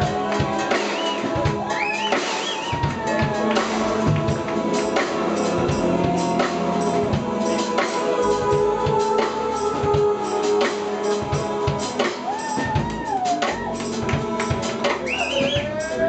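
Live jazz-funk fusion band playing: drum kit, electric bass and keyboards, with a melody line that slides up and down in pitch.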